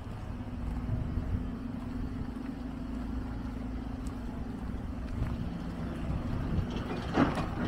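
An engine running steadily: a low rumble with a constant hum. A single sharp knock sounds near the end.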